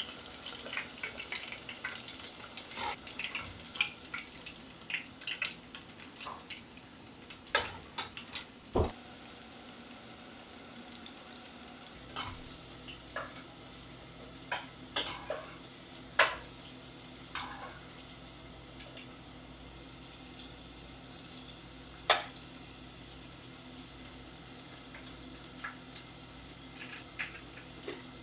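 Breaded chicken pieces deep-frying in hot oil: a steady sizzle with crackling pops and a few sharper clicks.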